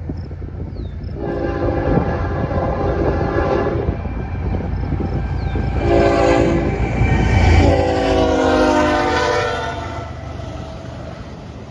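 Norfolk Southern freight locomotive's multi-chime air horn blowing a long blast, a short one, then a long one, the closing part of the long-long-short-long grade-crossing signal, over the rumble of the train. The pitch of the last blast sags slightly as the locomotive reaches and passes the crossing, and the rumble is loudest just as that last blast begins.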